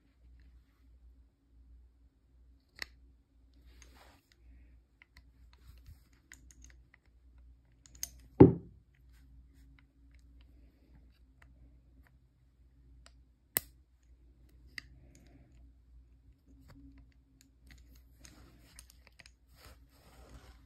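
Scattered metallic clicks from the action of a Pietta 1851 Sheriff cap-and-ball revolver as its cylinder is turned and the hammer worked, setting the hammer to rest on the safety pins between the chambers. One loud knock comes about eight seconds in, a sharp click a few seconds later, and a run of small ticks near the end.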